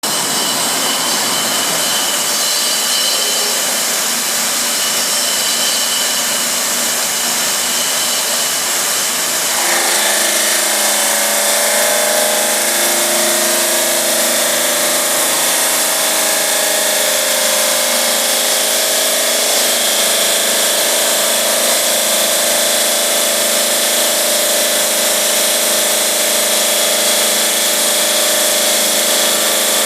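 GMM Brio Easy CNC bridge saw cutting 4 cm granite, a continuous loud grinding hiss of blade on stone. About ten seconds in it grows a little louder and a steady hum of several tones sets in.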